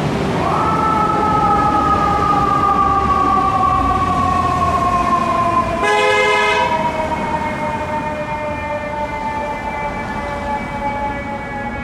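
Fire truck siren winding up quickly, then falling slowly in pitch as it runs down, with one blast of the truck's air horn about six seconds in.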